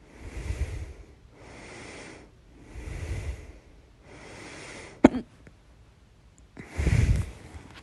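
A person breathing audibly in and out, close to the microphone, with one sudden loud hiccup about five seconds in, followed by a heavier breath.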